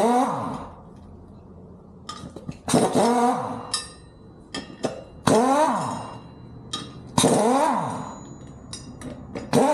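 Sharp metal-on-metal strikes, five of them about every two and a half seconds, each ringing out with a wavering pitch, with lighter metallic clinks in between, as the motorcycle's rear sprocket is worked loose from the wheel.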